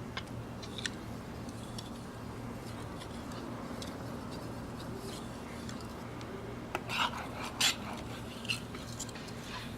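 Steel knife blade working on a whetstone: faint scraping with scattered light metallic clicks, and a few sharper clicks and taps a little past the middle, over a steady low hum.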